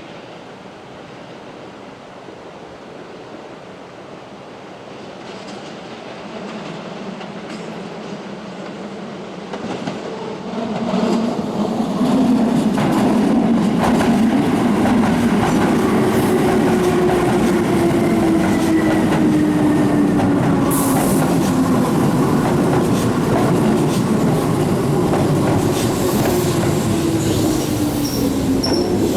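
Keihan electric train running into the station, growing louder over the first ten seconds or so. The wheels then clatter over the rail joints, and a motor whine falls steadily in pitch as the train slows.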